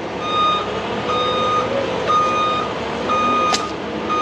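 Heavy-equipment backup alarm beeping about once a second, each beep about half a second long, over an engine running steadily. A single sharp click about three and a half seconds in.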